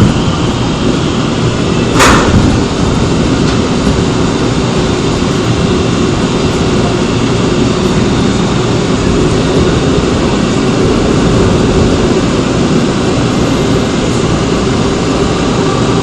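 Running noise inside a Seoul Metro Line 2 old 2000-series resistor-controlled electric train: a steady rumble of wheels and running gear under a low hum. A sharp bang comes about two seconds in.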